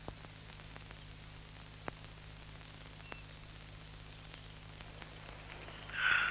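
Faint steady hiss and low hum, with a few soft clicks scattered through it and a short noisy burst near the end.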